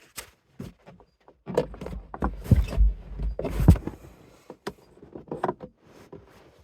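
Clicks, knocks and thumps of hands working the liftgate latch mechanism from inside a car's cargo area, with the heaviest thumps in the middle, about two and a half and three and a half seconds in.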